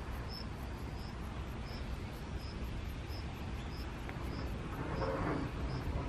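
Outdoor ambience: a steady low rumble with a short, high chirp repeating about twice a second, and a brief rustle about five seconds in.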